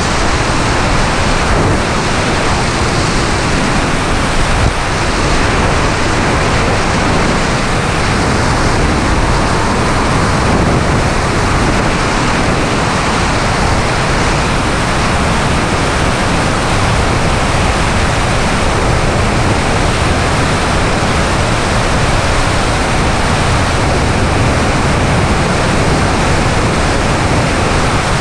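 Freefall wind rushing over a GoPro's microphone during a skydive: a loud, steady rush of air with no let-up.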